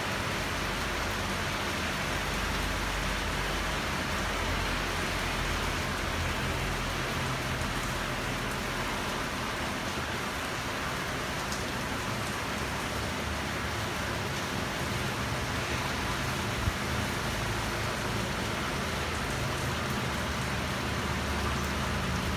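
Heavy rain falling steadily, an even hiss, with a low rumble of traffic on the wet street beneath it and one sharp tap about two-thirds of the way in.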